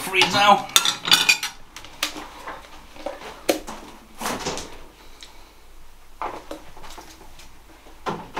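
Kitchen utensils and dishes being handled: a quick run of ringing metal clinks in the first second and a half, then scattered knocks and clicks.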